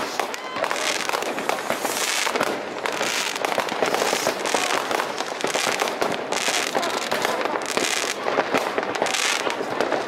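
Many fireworks and firecrackers going off at once: an unbroken stream of crackles and pops, swelling and easing every second or so, with no single bang standing out.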